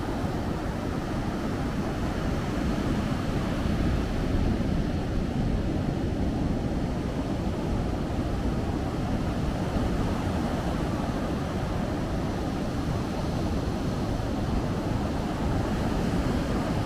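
Ocean surf washing on a beach, heard as a steady low rush, with wind buffeting the microphone.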